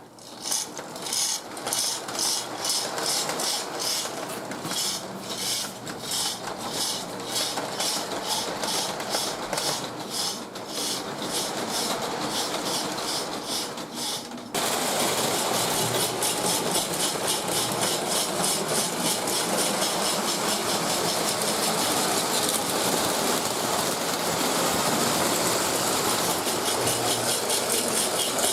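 Lionel MPC-era Pennsylvania 2-4-2 O gauge steam locomotive running on three-rail track, its mechanical sound-of-steam unit giving a rhythmic hissing chuff over the motor and wheel rattle. About halfway through it gets louder and the chuffs come faster.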